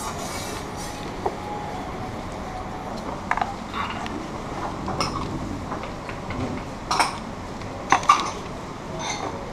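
Plates, glasses and utensils clinking and knocking now and then, a handful of short sharp clinks, over the steady hum of a restaurant dining room.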